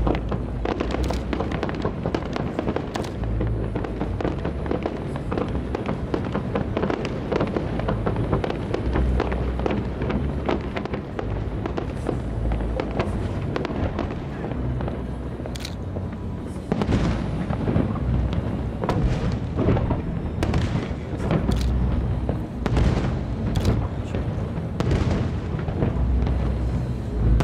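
Aerial fireworks shells bursting in a continuous barrage of booms and crackles, with heavier, sharper bangs from about seventeen seconds in.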